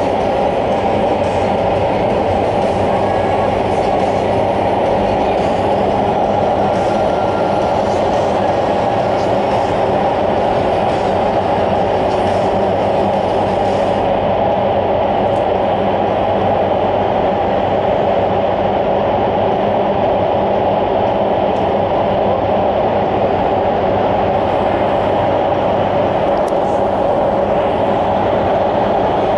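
Steady loud roar of the airflow in an indoor skydiving wind tunnel's flight chamber, with a constant low hum beneath the rushing air.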